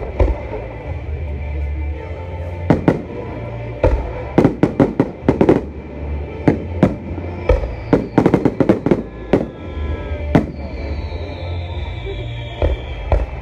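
Fireworks display: aerial shells bursting with sharp bangs at irregular intervals, including two quick volleys of reports in the middle. A falling whistle is heard about ten seconds in.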